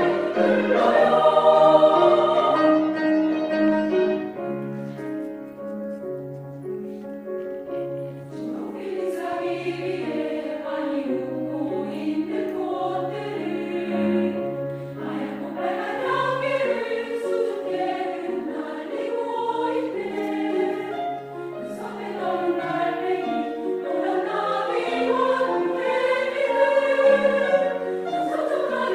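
Women's choir singing in several parts over a lower accompaniment. The singing eases into a softer passage a few seconds in, then builds again.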